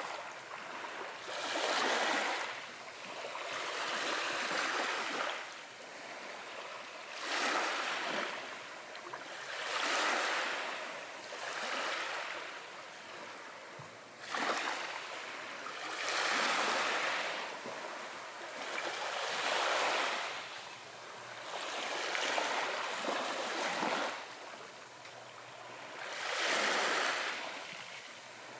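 Ocean waves breaking and washing onto the shore, one after another, each swelling and fading over two to three seconds.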